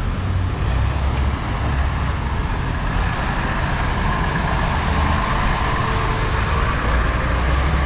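Steady motor-vehicle noise with a deep, continuous low rumble, like engines running and traffic in the street.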